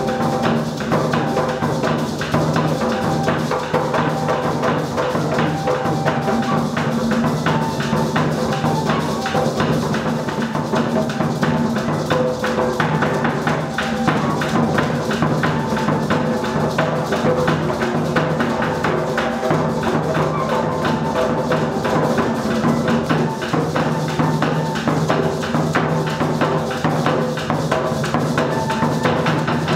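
Live Afro-Colombian mapalé music: hand drums beating a dense, steady rhythm with a cane-and-wax flute playing held melodic notes over it.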